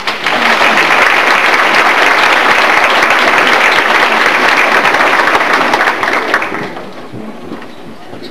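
Audience applauding: dense clapping that starts at once and dies away about six to seven seconds in.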